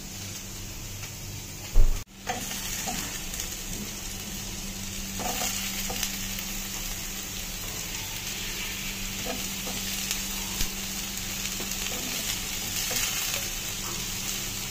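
Sliced onions and diced bell peppers sizzling in a hot wok while a slotted metal spatula stirs them, with light scraping clicks. A short loud knock comes just before the sizzling starts, about two seconds in, and a steady low hum runs underneath.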